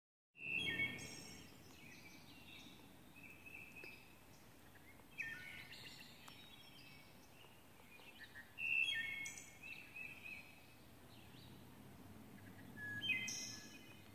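Forest songbirds singing: short chirping phrases about four times, with pauses between, over a steady low outdoor background rumble.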